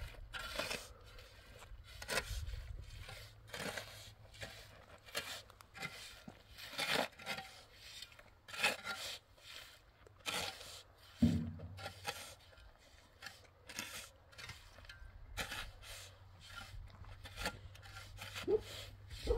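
Irregular scraping and rubbing strokes, roughly one or two a second, with a single dull thump a little past halfway and a brief rising tone near the end.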